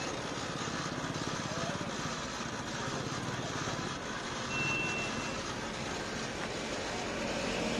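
Busy street ambience: a steady wash of traffic noise with indistinct voices, and a short high beep about halfway through.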